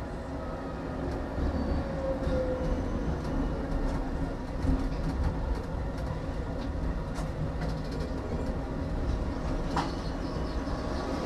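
Tram running along its track, heard from the driver's cab: a steady rumble of wheels on rail and running gear, with a few sharp clicks from the track.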